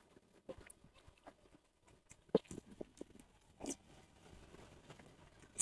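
Close-miked eating sounds: a mouthful of soft young egg yolks in spicy sauce being chewed, with faint wet smacks and clicks and a spoon scooping through the sauce. A sharp click comes near the end.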